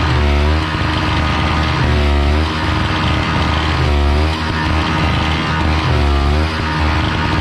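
Background rock music with heavy bass and a riff that repeats about every two seconds.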